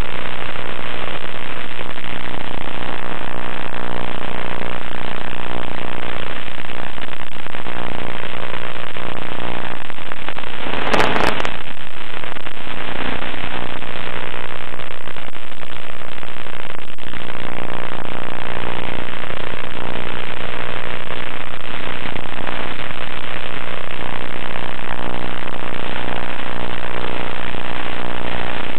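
Onboard audio from an FPV model airplane: the hum of its motor and propeller buried in heavy wind rush and radio hiss. About eleven seconds in there is a sharp crackle of static, after which the motor tone fades for a few seconds and then comes back.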